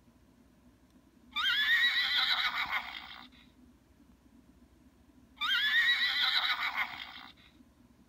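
Recorded horse whinnies played from a children's talking animal-card toy's small speaker: two whinnies of about two seconds each, the second about four seconds after the first.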